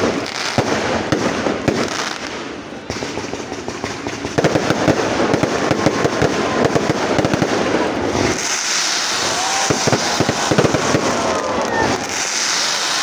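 Fireworks going off in a dense, continuous run of rapid crackling pops and bangs. From about eight seconds in, high hissing and gliding whistles join the bangs.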